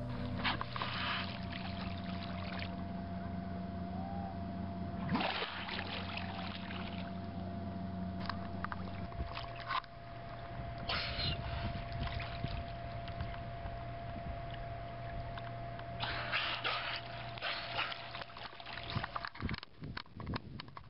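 A boat's motor running steadily on the water, with several short bursts of water splashing and sloshing against the hull.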